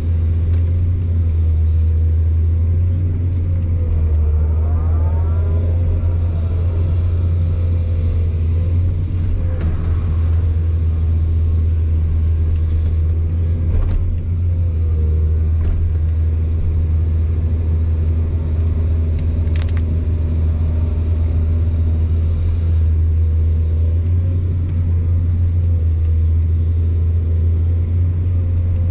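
Excavator diesel engine running steadily with a deep, even drone, with a few faint short clicks.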